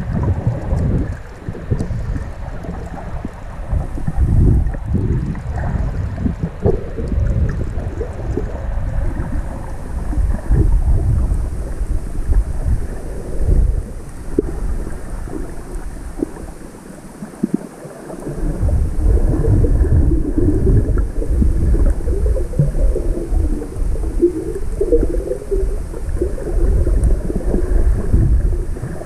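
Muffled underwater rumble and swishing of moving water picked up by a submerged camera while snorkelling over rocky shallows, with irregular low thumps of the water surge. The sound drops away briefly about two-thirds of the way through, then comes back.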